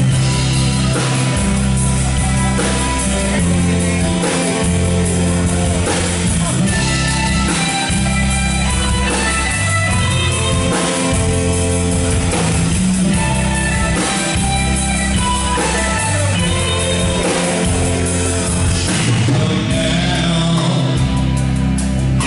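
Live band music: electric guitars, bass guitar and a drum kit playing together, with a man singing.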